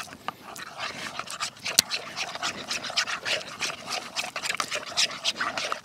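Fork beating pumpkin, cream and egg together in a wooden bowl: a quick, uneven run of wet scrapes and clicks, several a second.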